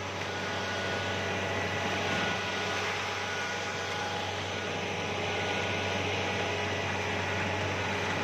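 Rice combine harvester running, heard from its operator's seat: a steady engine drone with a strong low hum and an even machinery hiss that holds level throughout.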